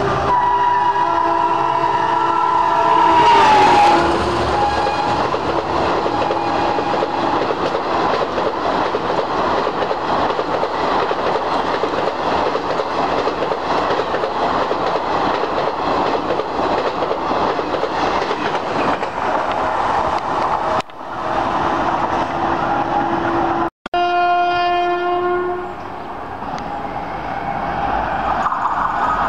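A Garib Rath Express running through a station at speed. The locomotive's horn sounds and drops in pitch as it passes, a few seconds in. Then the coaches rush past with a steady roar and wheel clatter for about seventeen seconds. After a cut, another train's locomotive horn sounds briefly as it approaches, and again near the end.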